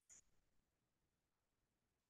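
Near silence, with one faint short click near the start, from a computer mouse.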